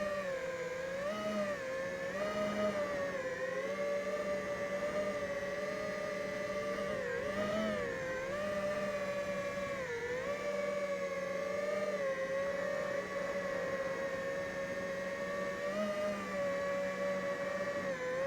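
FPV quadcopter's brushless motors and propellers whining in flight, the pitch dipping and rising again several times as the throttle changes.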